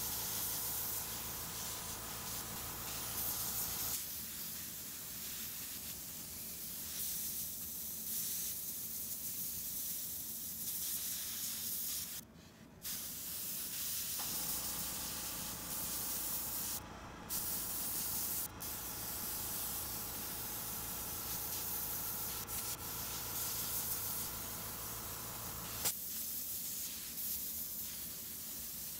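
Airbrush spraying paint onto paper towel: a steady high air hiss from the nozzle that cuts out briefly twice, around the middle, as the trigger is let go. A machine hum, the airbrush compressor running, sits under it for the first four seconds, stops, and starts again for the stretch from about 14 to 26 seconds.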